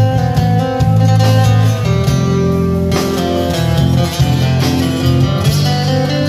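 Live band playing an instrumental passage: acoustic guitar strumming over a steady electric bass line, with drums.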